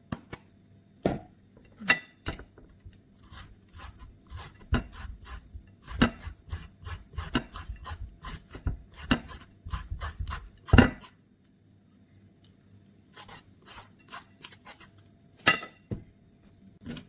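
Green papaya being shredded by hand for papaya salad: a run of quick, irregular rasping and scraping strokes, several a second, with a louder knock about eleven seconds in and a short pause before the strokes start again.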